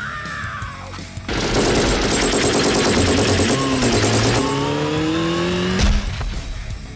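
Machine-gun fire sound effect, a rapid rattle of shots lasting about three seconds, followed by a rising mechanical whine that ends in a sharp bang near the end.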